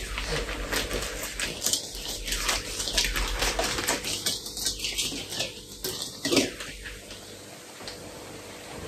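Kitchen handling noise: a quick run of scrapes and clicks with a hissy rustle, easing off about seven seconds in.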